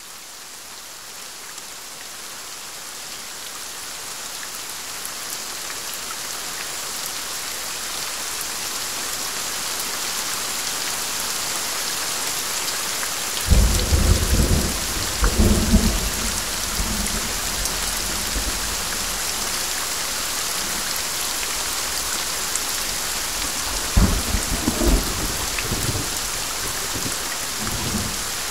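Steady rain fading in over the first ten seconds or so, with two low rolls of thunder, one about halfway through and another near the end.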